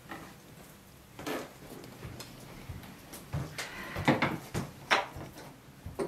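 Kitchen utensils and dishes being handled on a wooden table: a handful of light knocks and clinks, the sharpest clustered between about three and five seconds in.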